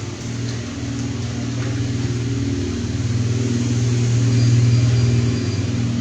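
A low, steady motor hum that swells to its loudest about four to five seconds in, then eases slightly.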